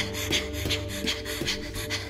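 Tense score with a steady low drone and held notes, over which a girl pants in quick, short breaths, about three a second.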